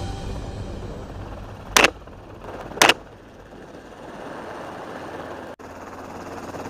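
Two gunshots about a second apart, fired from a helicopter, over the helicopter's steady engine and rotor noise.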